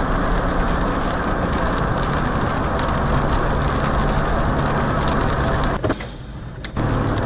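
Steady car engine and traffic noise heard by a dashcam, with a low hum under it. Near the end it drops away for about a second between a couple of clicks, then comes back.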